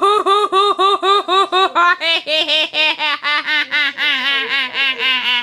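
A person laughing in a rapid, steady 'ha-ha-ha', about five or six beats a second. It starts high-pitched, drops lower about two seconds in, and keeps going while slowly sinking in pitch.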